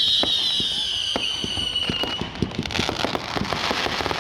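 Fireworks going off: a high whistle slides slowly down in pitch and ends about two seconds in, over a run of sharp bangs and pops. Dense crackling follows.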